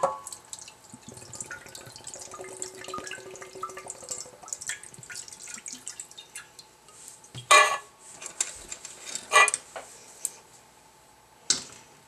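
Canned chicken broth poured into a glass baking dish, splashing and trickling for the first several seconds. Then three sharp clanks of metal tongs against a skillet.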